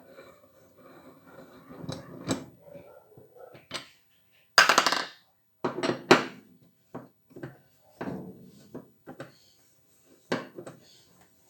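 Repeated knocks, clicks and clatter of tools and hard parts being handled and set down. About five seconds in there is a short, harsh noisy burst, and a sharp knock follows a second later.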